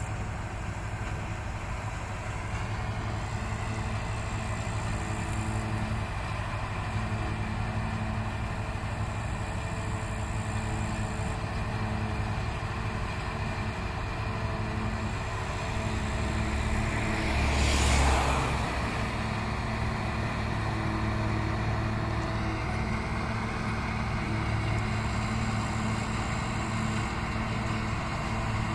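Self-propelled UES forage harvester with its K-G-6 harvesting unit and an MTZ-1221 tractor working side by side, a steady drone of diesel engines and the chopper running under load while haylage is blown into the trailer. About two-thirds of the way in, a loud whoosh swells and fades over a couple of seconds.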